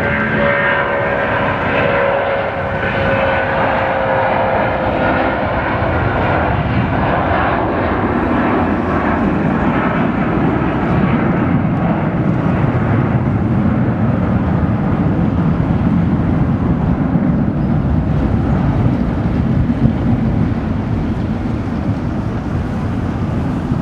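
Boeing 757-200 twin turbofan jet engines at take-off power: a whine of several tones, sliding slowly down in pitch, dies away over the first few seconds, leaving a steady low rumble as the jet climbs away.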